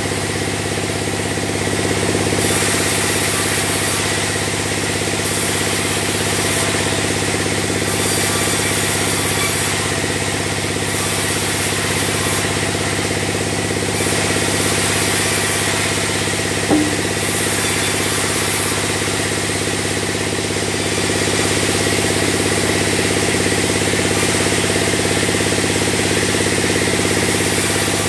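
Log band saw mill running steadily with the steady drone of its drive, while a log is pushed through the blade; a hiss comes and goes every second or two as it cuts. Once, a little past halfway, a single short sharp knock.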